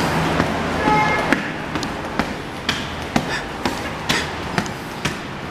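Footsteps climbing stone steps and then walking on wet pavement, about two steps a second, over a steady hum of city traffic. A brief high tone sounds about a second in.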